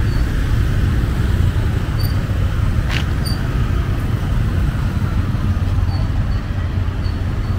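Dense city traffic with motorbikes and tuk-tuks running close by, heard from within the moving stream as a steady heavy low rumble. A few short high chirps sound every second or two, with a brief sharp hiss about three seconds in.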